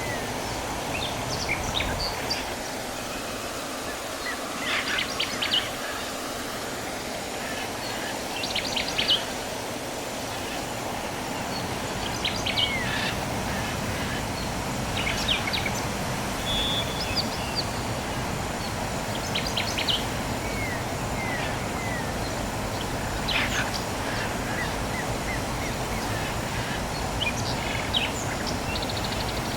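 Birds chirping: short high calls and little down-slurred notes every few seconds, over a steady low background noise.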